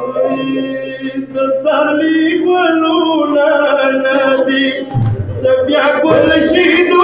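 A male voice sings a slow, bending lament melody of a Shia matam recitation (noha) over a held low drone. A low thump comes about five seconds in, as the drone ends.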